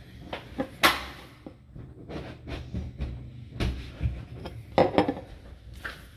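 Handling noise: irregular knocks, clicks and rustles as things are moved about on a table, with the sharpest knocks about a second in and about five seconds in.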